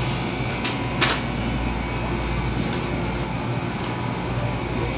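Steady hum and hiss of supermarket background machinery such as ventilation and refrigerated cases, with one sharp click about a second in.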